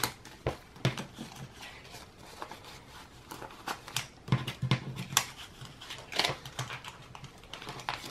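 Paper banknotes rustling and flicking as stacks of bills are handled and sorted by hand, with irregular soft taps.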